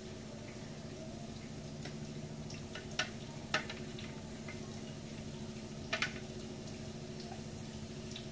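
Tea trickling from a steel saucepan through a strainer into cups, followed by a few sharp clinks of the strainer and cups at about three, three and a half and six seconds in. A steady low hum runs underneath.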